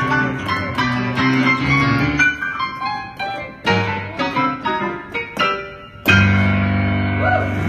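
Digital stage piano played fast, with dense runs and chords, then a loud low chord struck about six seconds in and held.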